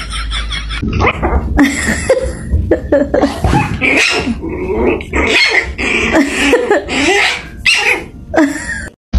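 Dogs barking, growling and yipping in short, uneven calls, stopping abruptly near the end.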